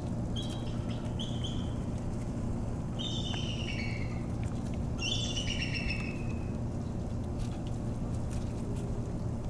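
Bald eagle calling: two short high notes, then two descending series of thin, piping notes about 3 and 5 seconds in. A steady low hum runs underneath.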